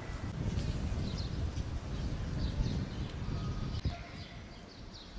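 Small birds chirping outdoors: short high chirps repeating every half second or so, over a steady low rumble, with one sharp click near the end.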